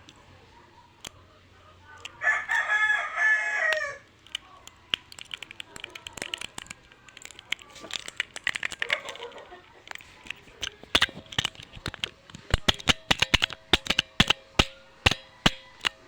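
Wireless keyboard keys clicking in quick, irregular runs, more densely toward the end. About two seconds in, a loud drawn-out call lasting under two seconds stands out over the clicks.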